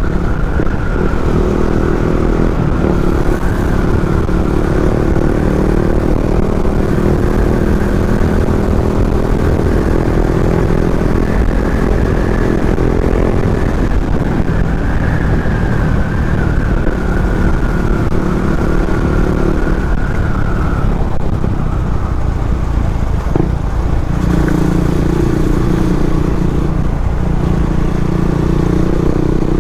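Motorcycle engine running under way, heard through a helmet-mounted mic with heavy wind rumble. The engine note holds steady, eases off about twenty seconds in, and comes back a few seconds later.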